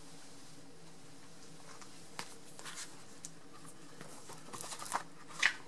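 Faint rustling and small clicks from items being handled on a table, over a low steady room hum, with a sharper click near the end.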